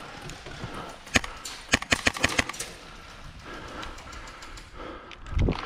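Airsoft rifle shots from an HPA-powered SIG MCX with a PolarStar Kythera engine. One sharp shot comes about a second in, then a quick run of six more over the next second. A dull thump follows near the end.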